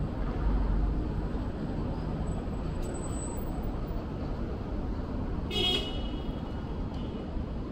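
City street traffic noise with a low engine rumble, and one short, high horn beep about five and a half seconds in.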